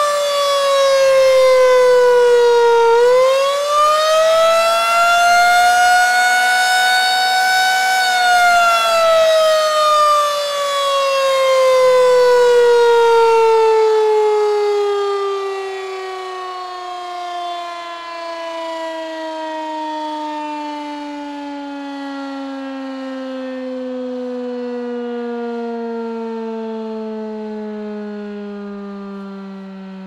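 Federal Signal 2001-SRNB rotating electromechanical tornado siren sounding during a test. Its tone sinks, climbs back up about three seconds in and holds, then from about eight seconds in winds down in a long steady fall in pitch as the rotor coasts down. The sound swells and fades as the horn turns.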